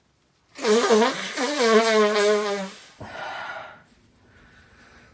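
A person sneezing: a drawn-out, wavering vocal wind-up, then a sudden sneeze burst about three seconds in. A short breathy sound comes near the end.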